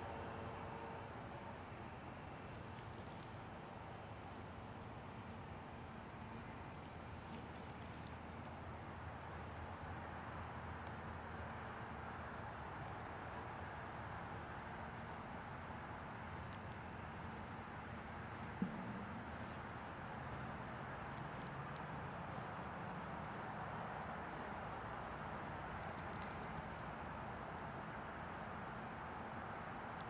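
Faint, steady high-pitched trilling of insects, a continuous pulsing note over a soft even background hiss. One sharp click sounds a little past the middle.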